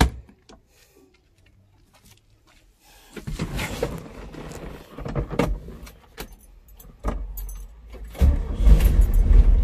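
A car door handle clicks open, then keys jangle and rattle at the ignition. About seven seconds in, the vintage Volkswagen's air-cooled flat-four is cranked, and it catches about a second later and runs with a loud low rumble.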